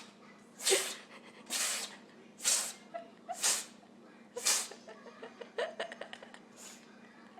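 A pet's loud, noisy breaths, about one a second, with a few faint short squeaks in the second half.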